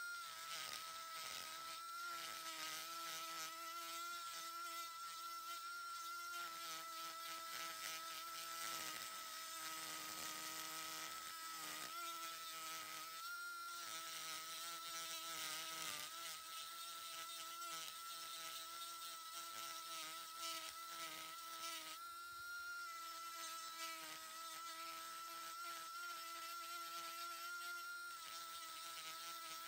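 Small handheld rotary tool running at a steady high whine, its spherical burr grinding into a resinous pine knot with a faint rasp. It is fairly quiet throughout, with brief dips in the grinding about twelve and twenty-two seconds in.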